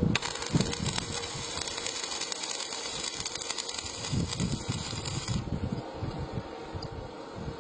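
Welding arc hissing and crackling steadily, starting suddenly and cutting off after about five seconds, over irregular low knocks.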